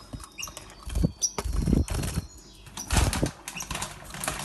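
Caged finches fluttering their wings, in several short bursts.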